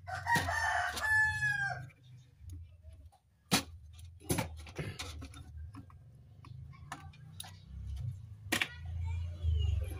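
A rooster crows once, a long call of about a second and a half, right at the start. After it come a few sharp clicks and taps of hand tools over a steady low hum.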